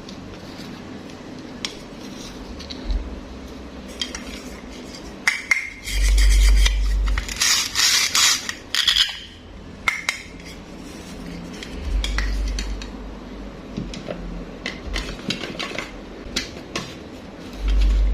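Small toys and toy fruit pieces being mixed in a container, clicking, clattering and scraping against each other and the container walls. There is a denser run of rattling about six to nine seconds in, with dull handling bumps now and then.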